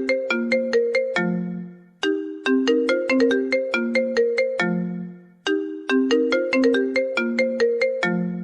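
iPhone ringtone playing on loop: a quick melody of short, struck-sounding notes that repeats about every three and a half seconds, each phrase closing on a longer low note.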